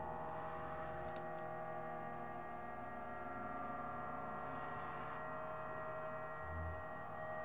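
Electroacoustic drone: many steady layered tones humming together, with a short low pulse about six and a half seconds in.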